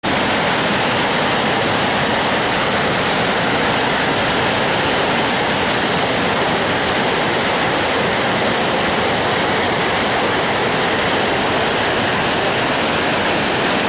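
Muddy canal water pouring out through concrete sluice gates and churning in the channel below, a steady, loud rush of turbulent water.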